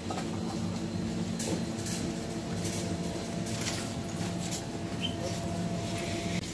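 Steady mechanical hum of a supermarket's background machinery, with a thin steady tone that cuts off near the end and a few light rustles and clicks.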